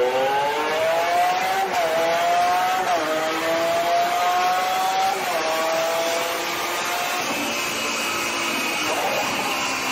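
Lamborghini Aventador's V12 pulling through the gears under load on a chassis dyno. Its pitch climbs, then drops at upshifts about two, three and five seconds in, and it eases off over the last few seconds.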